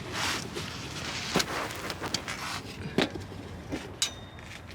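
Scattered sharp clicks and knocks of tools and metal parts being handled, one near the end ringing briefly like struck metal.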